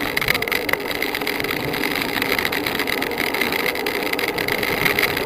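Steady rush of travel at speed down a mountain road, with wind and road noise and a thin high hum on top.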